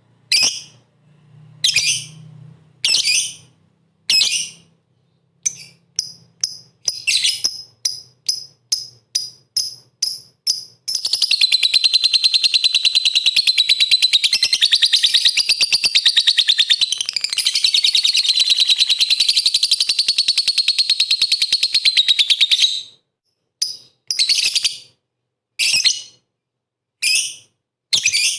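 Lovebird calling in full song: shrill single calls about once a second, quickening into a run of short chirps, then a long rapid trill lasting about twelve seconds before it breaks back into single calls.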